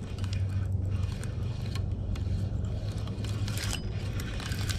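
Spinning reel being cranked, its gears whirring with a steady low hum and scattered small clicks as line is reeled up to feel for a biting fish.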